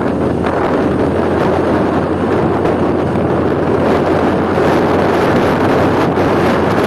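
Steady rush of wind on the microphone of a moving motor scooter, with the scooter's running and road noise underneath.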